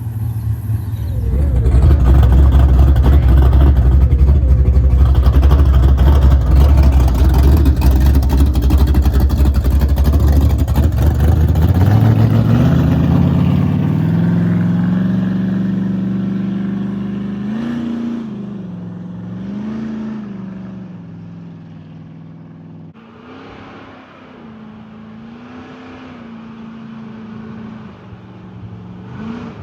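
A car engine running, with a loud low rumble for the first dozen seconds. The engine note then rises and holds, its pitch going up and down several times as the revs change.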